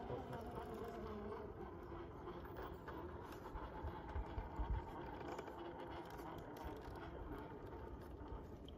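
Electric motor and gear whine of a 1/10-scale RC rock crawler climbing a steep rock face, the pitch wavering as the throttle changes, with a few low thumps about four to five seconds in.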